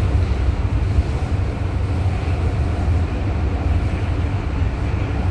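Steady low rumble of a RapidKL MRT Kajang Line train running along the track, heard from inside the passenger car.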